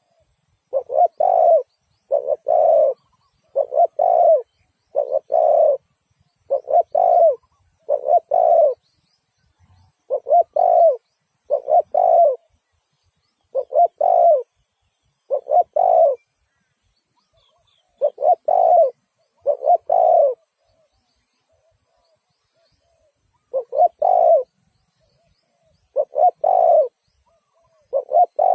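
Spotted dove cooing, repeating short phrases of two or three soft coos separated by brief pauses, with a longer pause a little past halfway.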